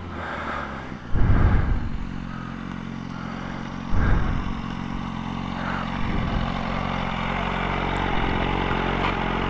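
Motorcycle engine idling steadily, with two short louder surges, about a second in and about four seconds in, as a second sport bike rides up and stops alongside.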